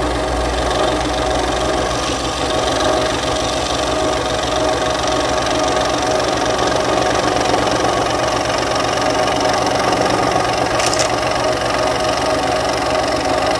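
Benchtop scroll saw with a thin spiral blade, running steadily and cutting through a wooden board as it is pushed sideways and back without turning the wood. A continuous motor hum with a fast reciprocating chatter.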